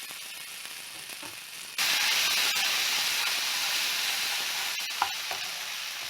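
Fish curry gravy paste hitting a hot frying pan and sizzling: a sudden loud sizzle about two seconds in that slowly dies down, with a couple of clicks of a spoon against the pan near the end.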